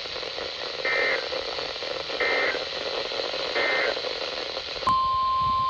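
Three short bursts of EAS SAME digital data tones, about 1.3 s apart, over steady radio hiss. These are the end-of-message code closing a weather radio alert. About five seconds in, a steady single-pitch alert tone starts abruptly: the 1050 Hz NOAA Weather Radio warning tone that opens the next alert.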